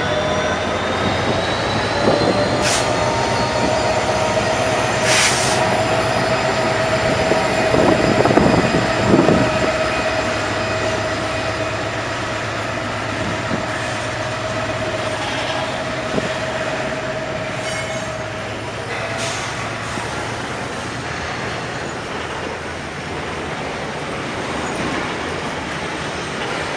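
Train led by a CC 205 diesel-electric locomotive running by, with a steady rumble of engine and wheels. A thin, steady squeal rides over it and stops about 19 seconds in, with a few sharp clicks here and there.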